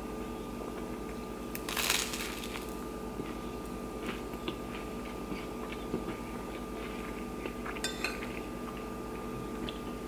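A person eating: a crunchy bite of dry toast about two seconds in, then chewing with small clicks, and a metal spoon clinking on a ceramic plate near the end.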